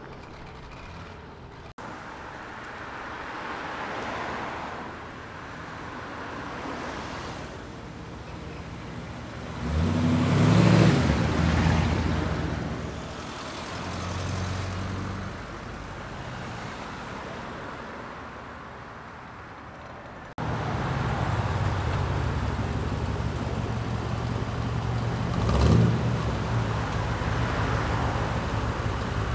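Classic car engines driving past one after another: a classic Mini's engine passes close, loudest about ten seconds in. Then a C3 Corvette's V8 rumbles steadily as it pulls out, with a short rev near the end.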